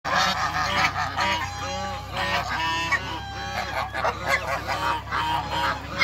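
A flock of African geese honking, many short calls overlapping in quick succession.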